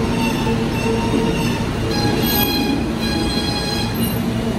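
Kawasaki R160B subway car with Siemens propulsion in motion: a steady rumble of wheels on rail under high-pitched, pitched squealing tones that grow stronger about two seconds in, typical of wheels squealing through a curve.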